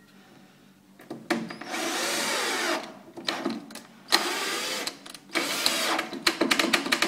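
Cordless drill-driver with a Phillips bit running in several short bursts as it drives a small screw into a panel, its motor pitch rising and falling with the trigger. Near the end a quick run of sharp clicks.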